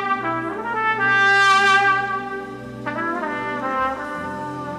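Solo trumpet playing slow, long-held notes, the loudest and highest a little over a second in, over a low steady backing tone.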